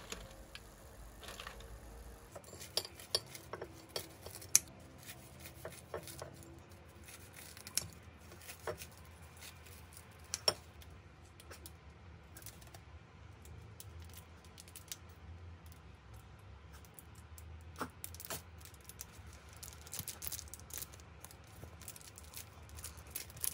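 Scattered light clicks and taps of kitchen handling: metal tongs, a fried pork cutlet lifted from a paper-lined air-fryer basket, and a ceramic plate set on the counter. A tonkatsu sauce bottle is squeezed near the end.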